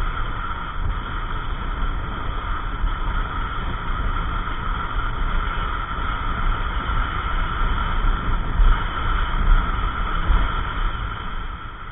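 Wind and engine noise from a Yamaha NMAX 155 single-cylinder scooter cruising steadily at about 55–60 km/h, heard through a rider-mounted camera with low wind buffeting on the microphone.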